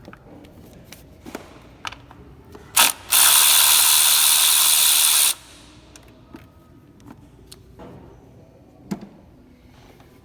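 Ratchet wrench working the hold-down bolt of an ignition coil on a 3.6 Pentastar V6: a run of rapid ratchet clicking lasting about two seconds, a little after a sharp click, among scattered light knocks and clicks of tools on the engine.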